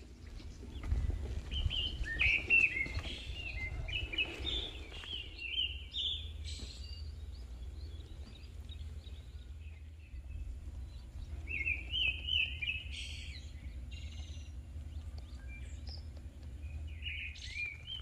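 Small songbirds chirping and twittering in three bouts of quick high notes, the first and longest lasting several seconds, over a low steady rumble.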